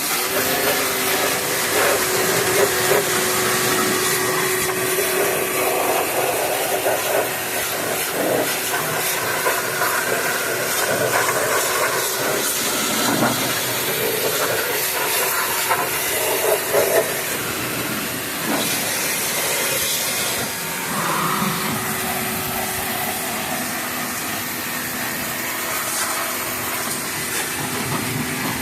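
Pressure washer spraying water over a car's engine bay: a steady, loud hiss with a constant machine hum underneath.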